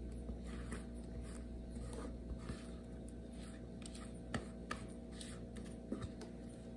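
A spatula scraping thick carrot cake batter out of a bowl into a glass baking dish: faint soft scrapes with a few light clicks, over a steady low hum.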